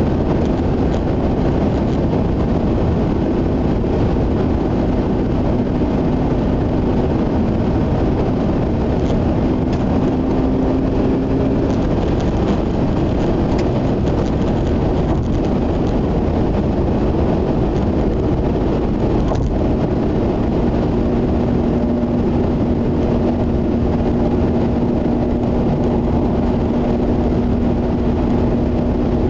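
Mazda RX-8 cruising at expressway speed, heard inside the cabin: a steady rush of tyre and road noise with the low hum of its rotary engine. A faint steady tone fades in and out at times.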